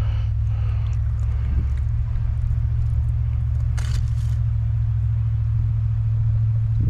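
Truck engine running with a steady low drone. A brief rustle comes about four seconds in.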